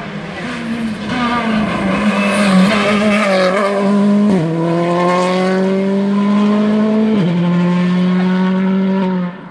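Rally car engine under hard acceleration, its pitch climbing and then dropping sharply at two upshifts, about four and a half and seven seconds in. The sound falls away sharply near the end.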